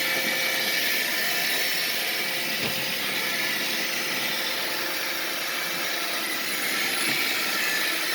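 Roomba robot vacuum running steadily, its motor and brushes giving a constant whirring hiss, with two soft knocks about three and seven seconds in.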